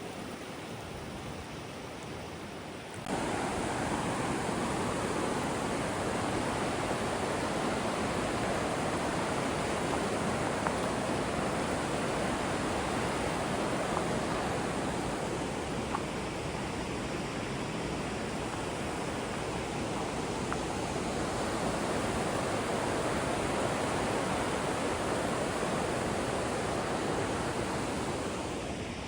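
Steady rushing of river rapids, an even wash of white water that suddenly gets louder about three seconds in and drops back near the end.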